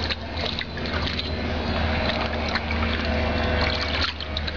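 Shallow water sloshing and splashing as a Catahoula leopard dog wades and paws about in a plastic kiddie pool, over a steady low rumble.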